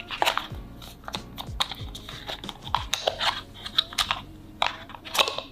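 Hands handling cardboard packaging and a charging cable: irregular light clicks, taps and rustles.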